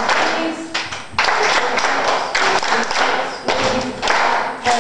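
A roomful of people clapping their hands together, in bursts of about a second with short breaks between.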